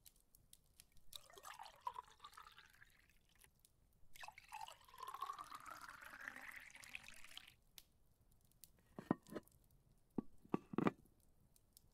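Liquid poured into a glass, its pitch rising steadily as the glass fills, after a shorter, fainter pour. A few short clinks follow near the end.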